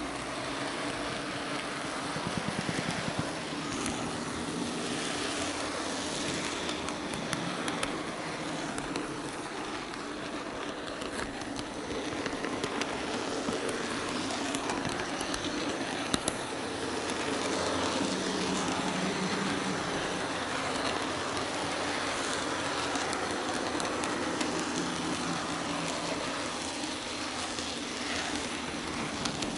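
An N-gauge model train running along the track, heard from the camera car riding on it: a steady small-motor hum under a continuous rattle of wheels clicking over rail joints and turnouts, with one sharper click about halfway through.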